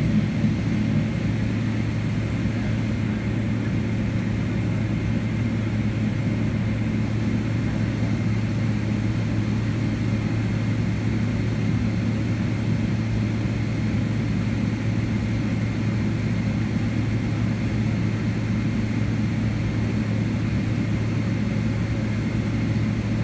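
Steady drone inside the cabin of a taxiing Boeing 777-200LR, its GE90 turbofan engines at idle, with a strong low hum and a faint high whine.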